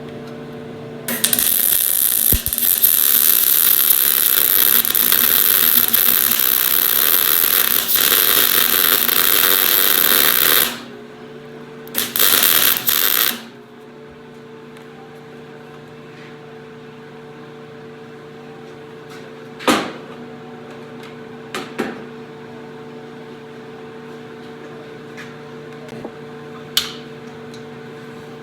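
MIG welder arcing in one long burst of about nine seconds and then a short burst of about a second and a half, welding a nut onto a rusted broken bolt so the heat frees it. Between and after the welds there is a steady machine hum with a few sharp clicks.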